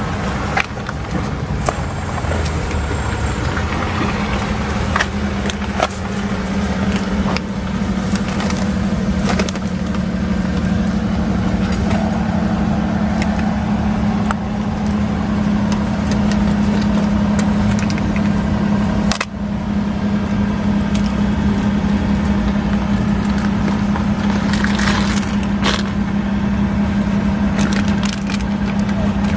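A steady low mechanical hum, holding one pitch throughout, with scattered light clicks and ticks over it.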